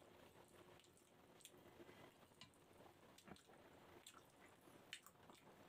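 Faint eating sounds: quiet chewing and the soft wet squish of fingers picking apart a boiled grouper head, with scattered small clicks, the sharpest about five seconds in.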